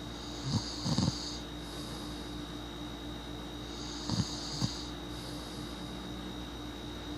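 A sleeping person snoring: two snores about three and a half seconds apart, each a couple of short low pulses with a breathy hiss. A steady background hum runs under them.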